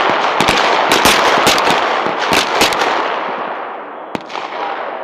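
M17 9 mm pistols firing a fast string of shots, several overlapping, with echo rolling across the range. The firing thins out after about three seconds, with one more lone shot about four seconds in.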